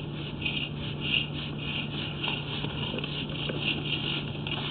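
Steady electrical hum with a hiss that pulses about three times a second, from the sewer inspection camera equipment.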